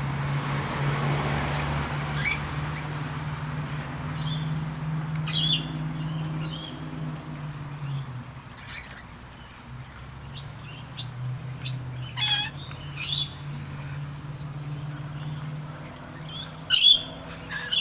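Mixed flock of rainbow lorikeets, manorinas and blue-faced honeyeaters giving scattered short squawks and chirps, with a quick run of louder calls near the end. A steady low hum runs underneath and dips in the middle.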